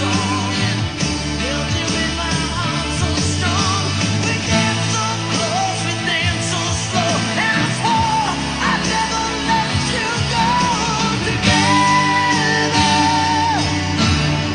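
A song with a singing voice over guitar accompaniment, the voice holding long wavering notes.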